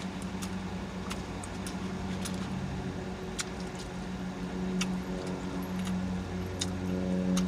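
Steady hum of a car running inside its cabin, swelling a little past the middle, with scattered short clicks of chewing and lip smacking.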